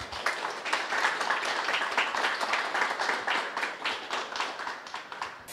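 A small audience applauding, many quick irregular claps that die away near the end.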